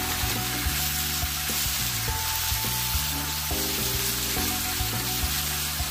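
Crushed radish and green chilli sizzling as they fry in hot mustard oil with mustard seeds in a kadhai, stirred with a steel spoon.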